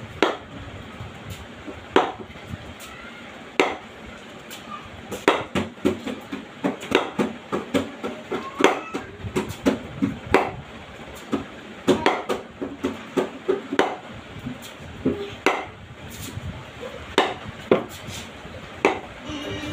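Cricket bat repeatedly knocking a ball hung on a string: sharp knocks at uneven intervals, sometimes several in quick succession.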